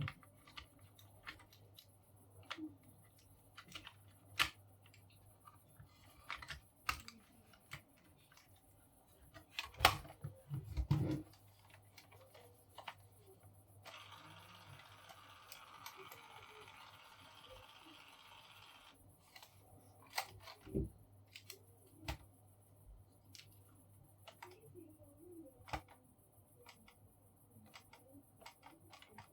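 Keys being pressed on a DYMO LabelManager 100 label maker, scattered clicks with a few louder knocks about ten seconds in. About halfway through, a steady whir for about five seconds as the label maker prints and feeds out the label tape.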